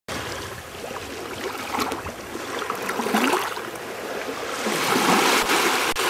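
Ocean surf washing up on a sandy beach, a steady hiss that swells louder about two-thirds of the way in.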